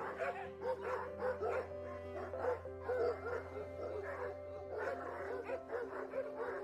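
A pack of dogs fighting, with a rapid run of short barking calls, two to three a second, over steady background music.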